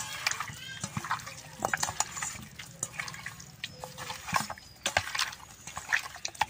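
Raw chicken pieces being squeezed and kneaded by hand with turmeric in a stainless-steel bowl: irregular wet squelches and squishes, with sharper clicks now and then.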